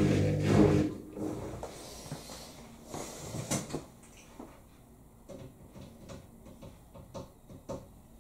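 Washing machine finishing its cycle: a steady hum of several tones cuts off about a second in, leaving faint scattered clicks and knocks from the machine, with one sharper click partway through.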